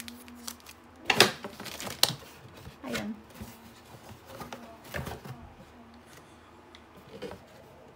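Handling noise from a cardboard camera box and a plastic-wrapped battery pack being picked up and turned over: a few separate sharp rustles and knocks, the loudest about a second in.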